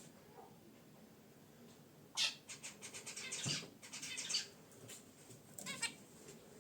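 Zebra finches in their cage: a sudden burst of rapid, scratchy bird activity about two seconds in, running on for about two seconds, then a shorter cluster near the end.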